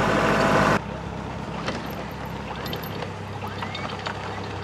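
A boat's inboard diesel engine, a Mercedes OM636, running steadily at low revs, louder for the first second, with scattered light clicks and knocks.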